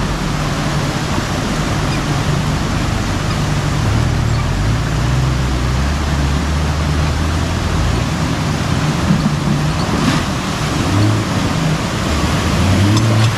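Fast-running snowmelt creek rushing steadily, with a Jeep's engine running low underneath as it crawls down into the water crossing. The engine note changes and the sound gets a little louder near the end as the Jeep pushes through the current.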